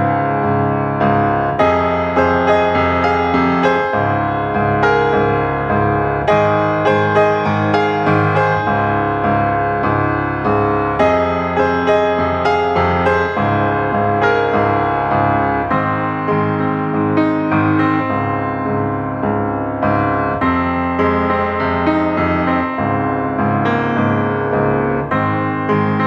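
Background piano music, a steady flow of struck notes and chords.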